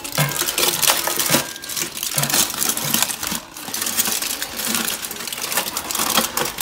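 Aluminium foil crinkling and crackling as it is peeled and crumpled off a steel biryani pot, breaking the dum seal after cooking.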